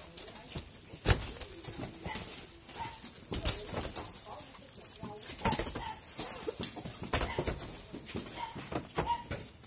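Plastic-wrapped oyster mushroom spawn bags being handled and set down in a truck bed: irregular dull thuds and plastic crinkling, with one sharper knock about a second in.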